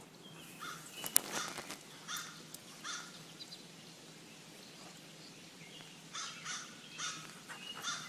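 A bird giving short calls, a few in the first three seconds and another run of them from about six seconds in, with a sharp click about a second in.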